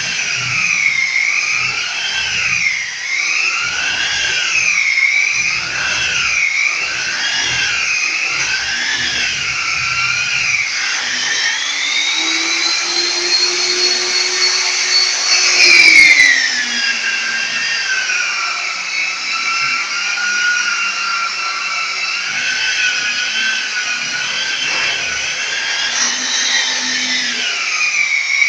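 Handheld electric sander-polisher running against a plaster wall, its motor whine rising and falling about once a second as it is pressed and moved over the surface. About halfway through it climbs to a higher, steadier whine for a few seconds, then drops back sharply with a brief loud scrape and runs on at a lower, steadier pitch.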